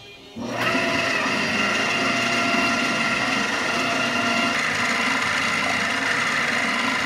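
Electric motor of a Proctor-Silex ice cream maker switching on about half a second in, then running steadily with an even whine as it turns the canister in the bucket.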